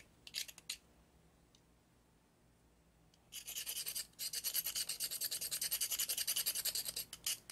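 Knife blade scraping the hair off a mangrove crab's legs: a few strokes, a pause, then a fast run of short rasping strokes, about eight a second, from a little before halfway to near the end.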